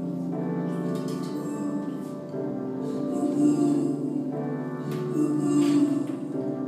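Live electronic music played from laptops and a mixer: layered sustained tones that shift in pitch every second or so, with a few short hissy sounds over them.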